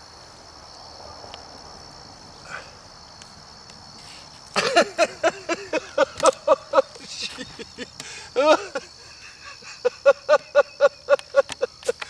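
Crickets chirring in a steady high drone. From about four and a half seconds in, two runs of short, quick vocal sounds, about four a second, rise over the insects.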